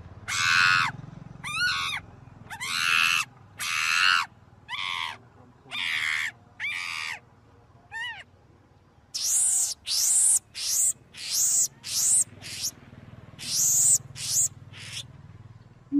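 Macaque screaming: repeated shrill calls of about half a second each, at roughly one a second at first, then a quicker run of shorter calls in the second half.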